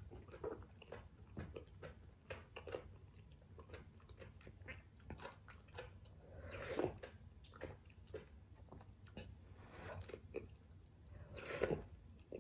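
Close-up chewing of ramen noodles and seafood: soft, wet mouth clicks. A louder slurp of broth from a spoon comes about halfway through, and another louder slurp near the end.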